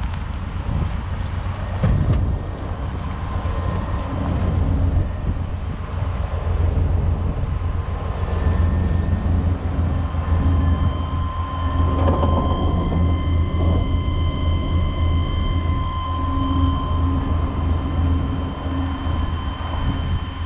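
Propane-fuelled 1994 Chevrolet 3500HD truck engine idling: a steady low rumble. A faint steady high whine joins it about halfway through.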